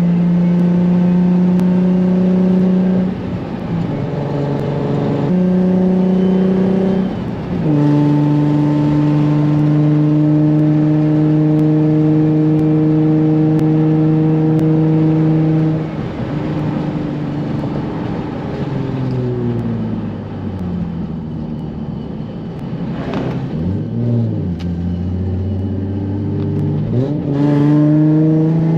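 Single-turbo Nissan 350Z's V6 engine heard from inside the cabin, pulling at steady revs with brief dips in pitch about 3 and 7 seconds in. After a long level stretch the revs fall away in steps, with two short rises in between, then climb again near the end.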